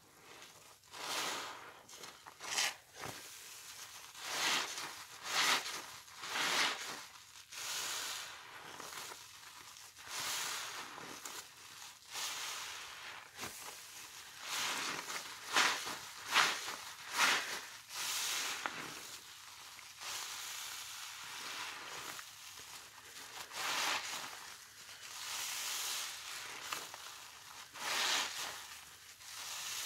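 Wet sponges full of sudsy pine cleaner being squeezed again and again, making wet squishing, fizzing squelches of foam at an uneven pace of about one every second or two.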